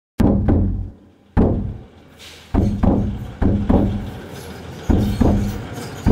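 Deep drum hits in a slow, uneven rhythm, mostly in pairs of strikes, each ringing out before the next.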